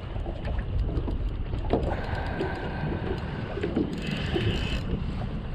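Wind buffeting the microphone over choppy water, with the faint clicking and brief whirring of a spinning reel being cranked to bring in a hooked striped bass.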